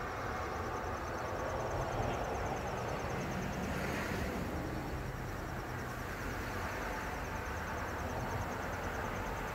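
Outdoor ambience: a steady low rumble, with a fast, even, high-pitched trill of insects running over it.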